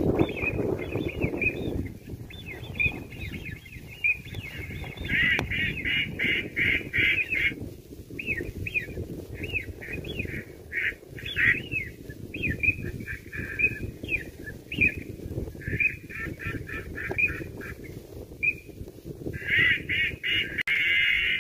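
Ducks calling: runs of quick, repeated quacking calls, broken by short gaps, with a denser stretch of calling near the end.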